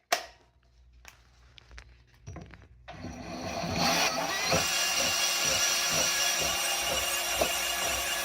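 A sharp click just after the start. About three seconds in, a bandsaw starts and runs steadily, its blade cutting through a metal pipe clamped in a bench vise.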